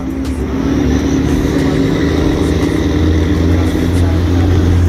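A Detroit Diesel 12.7-litre inline-six (Series 60) in an International cabover truck, pulling steadily, heard from inside the cab. It is a steady low drone that grows a little louder toward the end.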